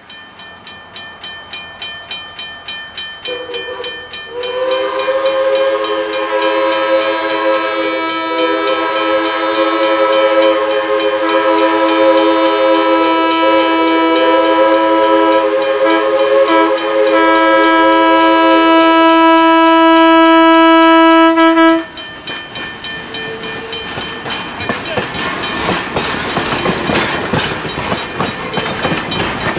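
Pennsylvania Railroad 643, a 1901 B4a 0-6-0 switcher, blowing its three-chime steam whistle in one long chord for about 18 seconds. The upper notes drop away a few seconds before the whistle cuts off. Its exhaust chuffs at about two beats a second before the whistle, and chuffs again with a hiss of steam afterwards.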